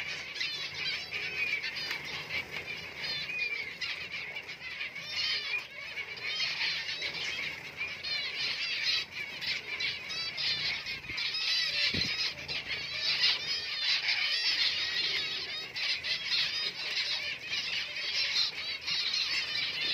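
Many caged finches chirping at once: a continuous chorus of short, high-pitched, overlapping notes.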